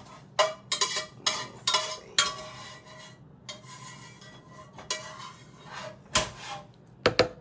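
Dishes and a spoon clattering and clinking as cooked potatoes and carrots are moved into a blender jar. A quick run of sharp knocks comes in the first two seconds, then a few scattered clinks.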